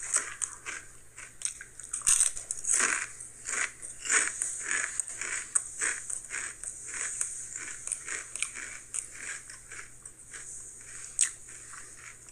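A person chewing a mouthful of Sun Chips Original whole-grain chips: crisp, irregular crunches, close together at first and sparser in the second half.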